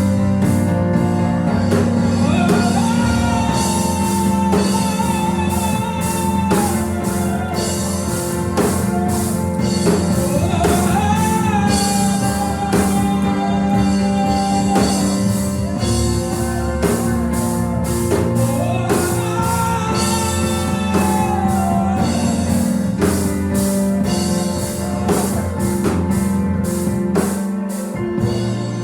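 Gospel music played by a band, with singing, a steady drum beat and sustained low notes.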